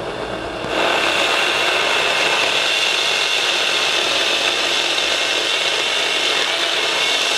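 OLMLMO 8-inch cordless electric mini chainsaw cutting an apple branch. The motor runs lightly at first, then under a second in the chain bites into the wood and saws steadily through it.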